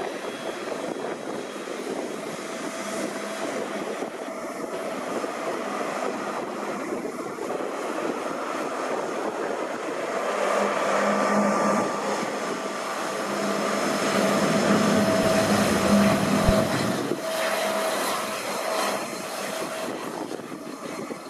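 Airliner passing close by: steady engine rush with a humming whine that swells to its loudest about 15 seconds in, then fades.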